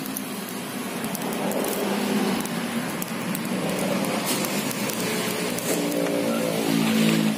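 A motor vehicle's engine running with a steady hum, becoming louder and more even in pitch over the last couple of seconds.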